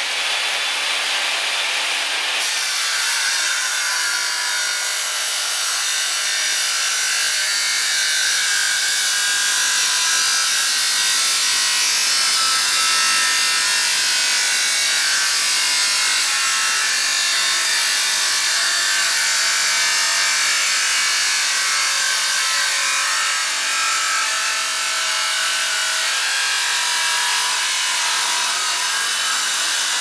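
A 7¼-inch circular saw fitted with an abrasive cutoff wheel, its motor already spinning, bites into metal about two and a half seconds in. From then on it grinds through the metal under load, a loud, steady, harsh cutting noise.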